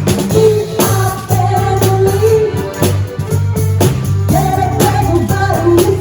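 Ensemble music with a sung melody over a bass line and drum beats.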